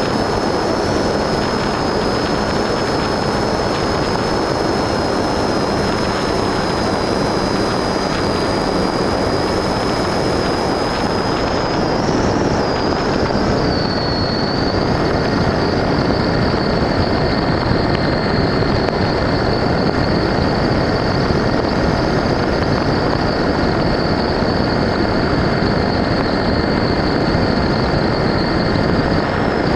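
FPV model aircraft heard from its own onboard camera in flight: a steady rush of wind and propeller noise under a high motor whine. The whine wavers and dips about 13 seconds in, then holds a little lower.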